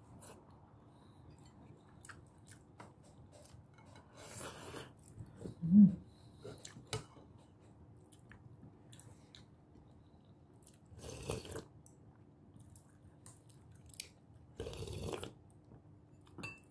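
Close-up mouth sounds of a person chewing a mouthful of boiled sinigang vegetables: soft wet clicks with a few short breathy bursts. One brief louder sound about six seconds in.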